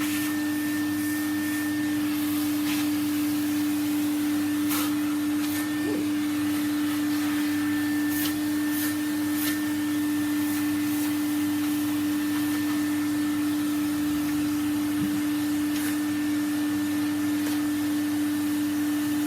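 Vacuum cleaner running steadily with a strong even hum, with a few light clicks now and then.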